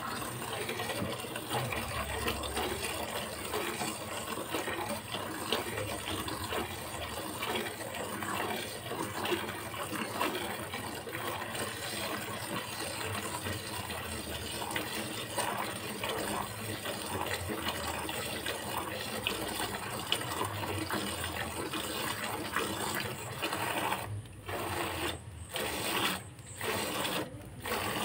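Hand-milking a cow: rapid, rhythmic squirts of milk from the teats hissing into a bucket already partly full of frothy milk. In the last few seconds the squirting stops and starts several times.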